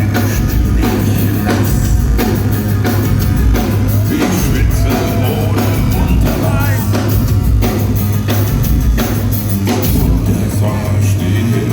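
Loud live industrial metal band music: a steady, pounding drum beat over a sustained heavy bass line and a dense wall of band sound.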